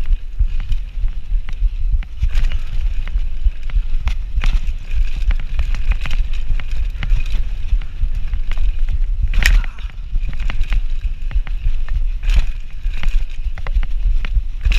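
Mountain bike riding fast down a bumpy dirt trail: wind buffets the microphone with a heavy rumble, and the bike rattles and clatters with many small knocks as the tyres hit bumps. A brief high squeak that falls in pitch comes about two thirds of the way in.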